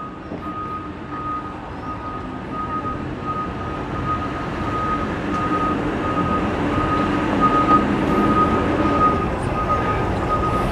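Vehicle backup alarm beeping: evenly spaced high-pitched beeps. Under it an engine rumbles and grows gradually louder.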